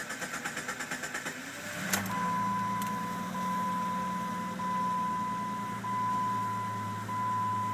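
A 2004 Jeep Grand Cherokee's 4.0-litre PowerTech engine cranking on the starter, then catching about two seconds in and settling into a steady idle. The starting took a little while because the battery is a little bit low. Once it runs, a dashboard warning chime sounds over and over, a steady tone that repeats about every second and a quarter.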